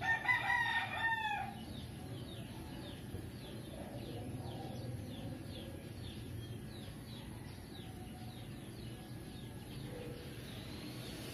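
A rooster crowing once, a pitched call about a second and a half long right at the start. After it, faint short high chirps repeat about twice a second over a low steady background noise.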